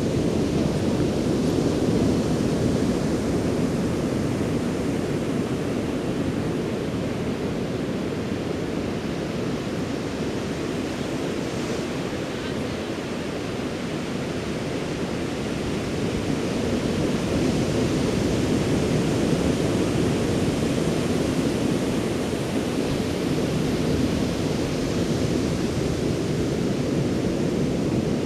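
Ocean surf breaking and washing up the beach: a steady rush that slowly swells and eases over several seconds.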